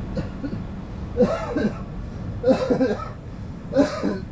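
Steady low rumble of an Indian Railways express coach running at speed on the rails, heard at an open door. Over it, a man makes three short vocal sounds like chuckles or coughs, about a second apart.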